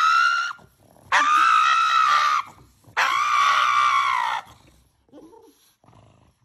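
Pug screaming in protest at having its nails clipped: the tail of one high-pitched cry, then two long, steady screams of about a second and a half each, after which it falls quiet.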